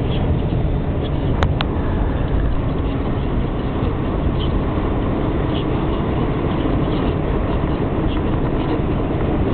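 Steady road and tyre noise with engine hum inside a car's cabin, driving at motorway speed.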